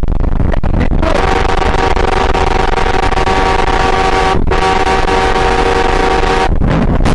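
A vehicle horn held in a long blast over loud road and wind noise. It breaks off briefly about four seconds in, then sounds again until shortly before the end.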